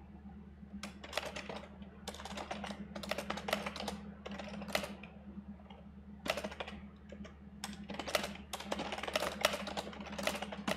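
Fast typing on a computer keyboard: dense runs of keystrokes in two long bursts with a short lull about halfway. A steady low hum sits underneath.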